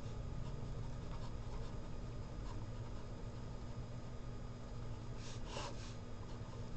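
Ballpoint pen writing on paper: faint, scratchy pen strokes, with a louder stroke group about five seconds in as a word is underlined, over a steady low hum.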